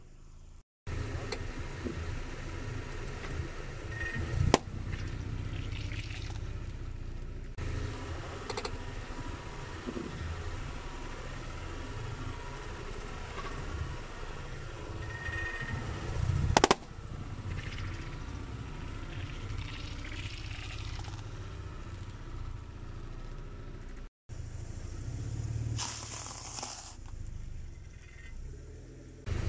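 A car creeping slowly over objects, with a steady low engine and tyre rumble. Something cracks sharply under a tyre about four seconds in, and a louder crack or pop comes near the middle as an object is crushed.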